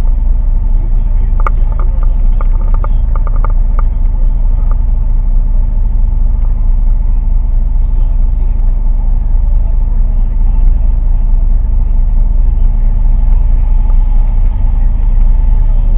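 A boat's engine running at a steady speed, a loud even low drone.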